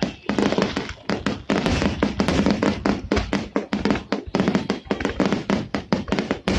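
Fireworks finale: aerial shells bursting in quick, uneven succession, many bangs a second.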